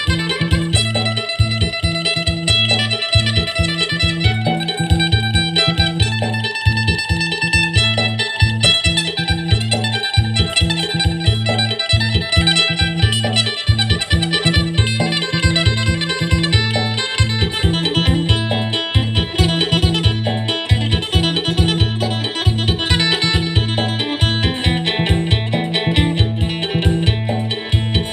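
Acoustic phin, the Thai-Isan plucked lute, playing a quick, bright melody in the fast 'sing' style over a steady bass-heavy beat.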